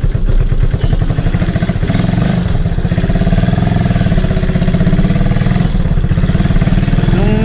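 Motorcycle engine running steadily as the bike rides along, heard from the rider's seat, with an even low pulsing.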